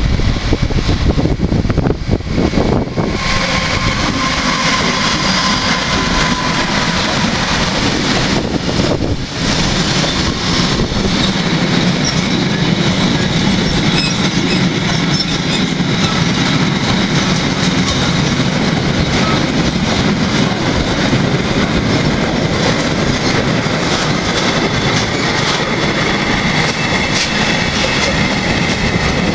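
Mixed freight train behind a Class 189 electric locomotive passing close: wagons' wheels rolling steadily over the rails with clickety-clack from the joints and faint high wheel squeal.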